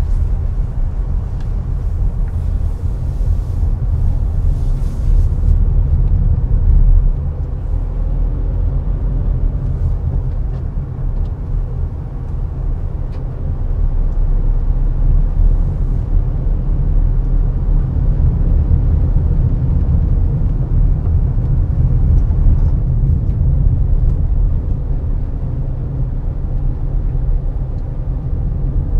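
Car driving along city roads: a steady low rumble of engine and tyre noise, with a short stretch of hiss a second or so in.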